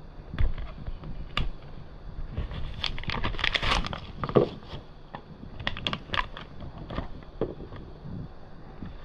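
Handling noises: scattered clicks and knocks, with a stretch of crinkling and crackling about three to four seconds in.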